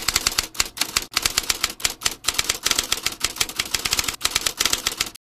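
Typewriter keys clacking in a rapid run of keystrokes, with short breaks about one and two seconds in, stopping just before the end.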